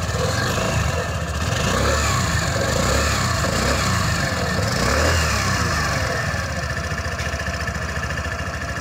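Exhaust note of a Suzuki Access 125 BS6 scooter's single-cylinder, fuel-injected four-stroke engine. It is revved a few times in the first half, then settles back to a steady idle.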